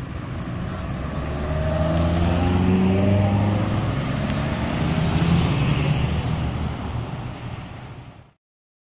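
Road traffic passing close by: motorcycles and cars drive past one after another, their engine notes falling in pitch as each goes by, with a bus approaching near the end. The sound cuts off abruptly about eight seconds in.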